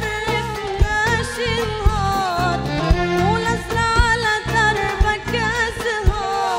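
A boy singing solo into a microphone, a wavering melody with vibrato, over instrumental backing with a steady low beat.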